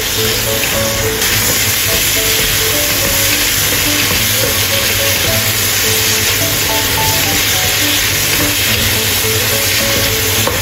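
Tomato chunks and chopped garlic sizzling steadily in hot oil in a wok while being stir-fried with a wooden spatula, cooking until the tomato releases its red oil. A melody of background music plays alongside.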